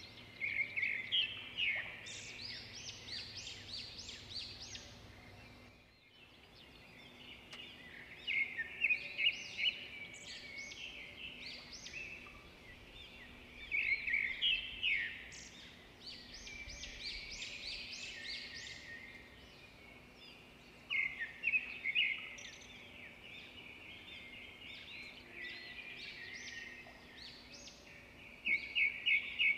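A songbird singing in repeated bouts of quick chirps and trills, a bout every six or seven seconds, over a faint steady hum.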